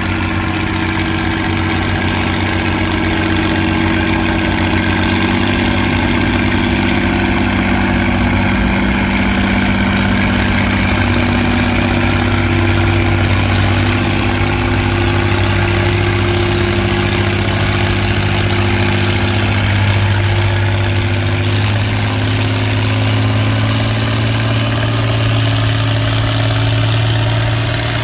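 Vintage farm tractor engine running steadily under load as it drags a weight-transfer sled down the pulling track, holding a near-constant pitch with small changes in speed.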